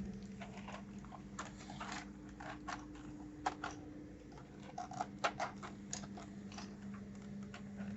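Irregular small plastic clicks and taps of keyboard keycaps being handled and pressed onto their switches, over a faint steady hum.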